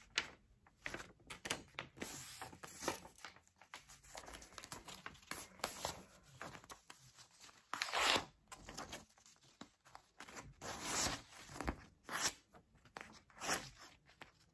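A sheet of printing paper being folded in half and creased by hand: a run of short rustles and rubbing strokes along the fold, the loudest about halfway through.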